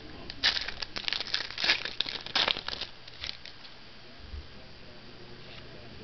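Foil trading-card pack wrapper being torn open and crinkled, a quick flurry of rips and crackles over the first three seconds, then only a few light handling sounds.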